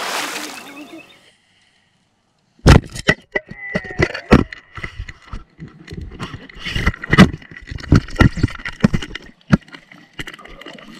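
Muffled underwater knocks and thumps heard through a submerged camera. A short rush of water noise stops about a second in, and after a brief silence come irregular sharp knocks, some loud, over a faint steady high tone.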